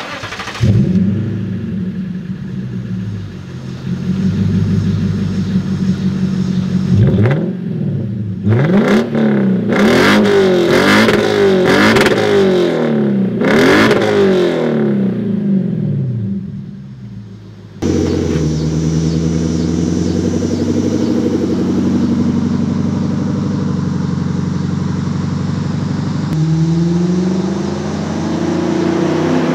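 2008 Lexus IS F's 5.0-litre V8 with its downstream catalytic converters deleted, idling and then revved sharply several times. After a cut, the same car drives on the road, the engine pulling steadily, its pitch climbing near the end.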